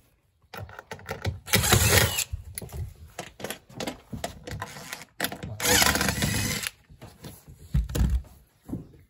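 Cordless impact driver running in two bursts of roughly a second each, about four seconds apart, on the screws of an aluminium trim strip along a boat's floor. Small knocks and clatter from handling fall between the bursts.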